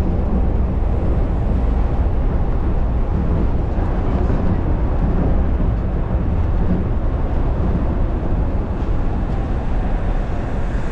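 Shonan Monorail car running along its overhead track, heard inside the car as a steady low rumble from its rubber-tyred bogies.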